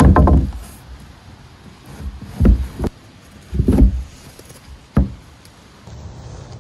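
About five dull thumps and knocks on the weathered wooden boards of a trap box, the first the loudest, spread irregularly over several seconds.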